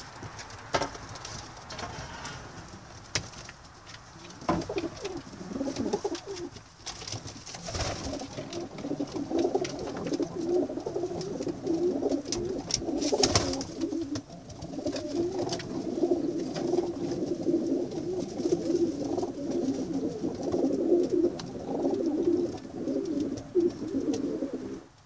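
Homing pigeons cooing: a low, continuous warbling coo that starts about five seconds in. A few sharp knocks break in over the first half.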